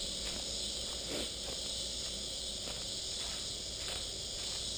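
Steady high-pitched chorus of insects in the woods, with soft footsteps on leaf litter at a walking pace.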